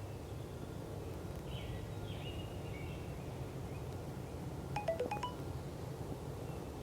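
A quick run of about five sharp turkey yelp notes, lasting about half a second, about five seconds in, over faint songbird chirps and steady outdoor background noise.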